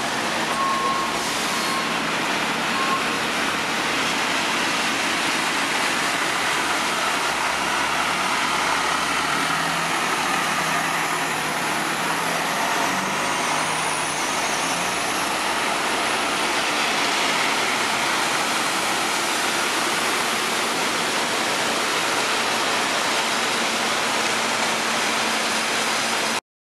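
Steady rushing noise of traffic driving through a flooded street, mixed with the flow of floodwater running over the road and sidewalk.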